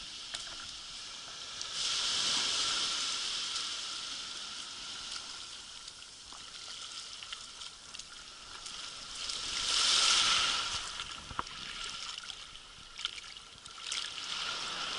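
Small waves washing up on a sand beach, the surf rising and falling away, loudest twice: a couple of seconds in and again about ten seconds in. Light splashes and small clicks of water around feet wading in the shallows.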